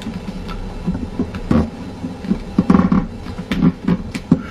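Sheet of paper crinkling and rustling as fingers fold and press a crease flat, with irregular crackles and soft handling bumps.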